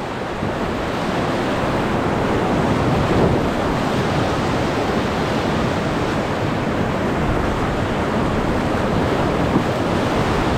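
Rushing whitewater of a river rapid around a raft, a steady loud rush of water.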